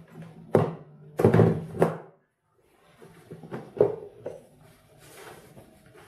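Plastic food containers and lids handled on a table: a series of hollow knocks and clatters, the loudest in the first two seconds and another near the middle.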